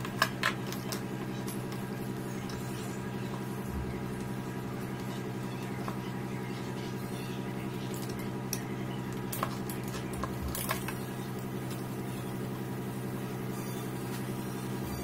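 Light clicks and knocks of the plastic housing and internal parts of a battery strapping tool being handled and fitted together, with a sharp cluster just after the start and another about ten seconds in, over a steady low hum.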